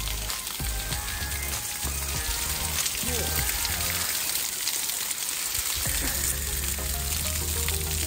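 Water dripping and trickling down a wet, mossy cliff face in a steady hiss, with background music under it.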